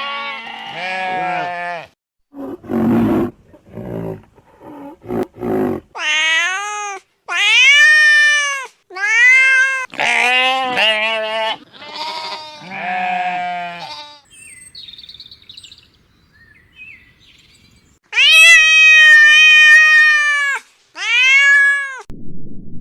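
Goat bleating over and over in loud, wavering bleats, with a few longer, drawn-out bleats near the end. Before them come several rougher, lower animal calls.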